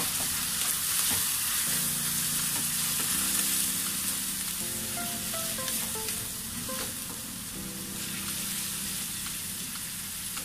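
Sliced pork liver with onions and garlic sizzling in hot oil in a frying pan, stirred and scraped around with a wooden spatula.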